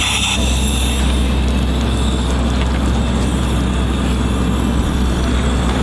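Clicks and rattles of metal fittings on a commercial diving helmet being handled, its latches and clamp worked by hand, over a steady rumbling noise.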